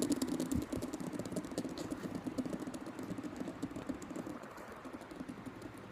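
Fidget spinner spinning on its centre bearing: a fast, rattling whir of tiny clicks that gradually fades away.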